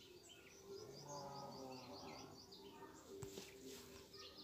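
Faint high-pitched chirping in quick runs of short notes over a low steady hum, with a single click about three seconds in.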